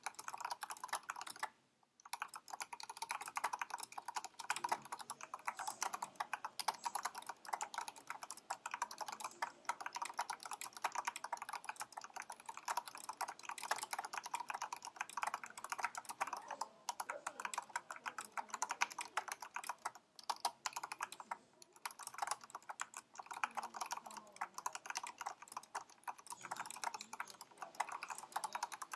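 Continuous fast typing on a HyperX Alloy Elite RGB mechanical keyboard with Cherry MX Brown tactile switches on an aluminium plate and thick PBT keycaps: a dense clatter of keystrokes, with short pauses about two seconds in and again around twenty seconds.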